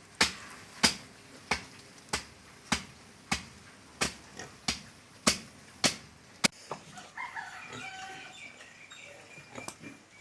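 A run of sharp, evenly paced knocks, about one every 0.6 seconds, then, about seven seconds in, a chicken calling.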